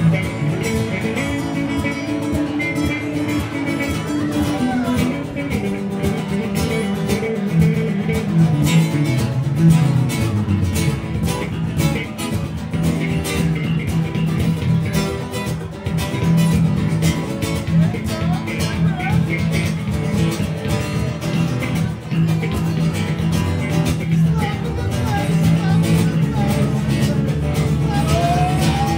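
A live band plays a guitar-led instrumental break, with a steady beat and no singing.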